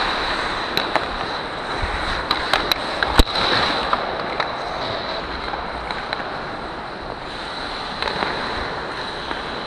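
Ice hockey play heard from a skating player: skate blades scraping the ice with rushing air, and hockey sticks clacking against the puck and ice several times, with one loud crack about three seconds in.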